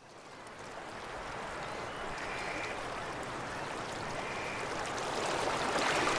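Flowing river water, a steady rushing that fades in from silence and grows gradually louder.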